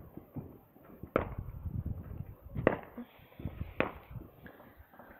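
Fireworks and firecrackers going off at a distance: a run of sharp bangs and pops, three louder ones each trailing a short echo.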